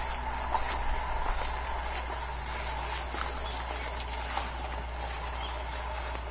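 Outdoor ambience of steady, high-pitched insect chirring, which swells louder for about two seconds near the start. Faint footsteps sound now and then.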